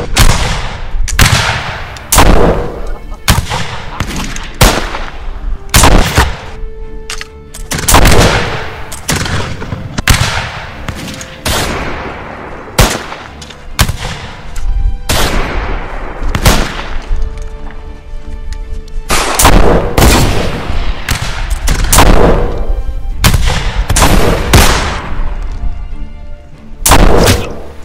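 Flintlock musket gunfire in a battle: about twenty-five single shots at irregular intervals, roughly one a second, each trailing off in an echo. Background music runs underneath.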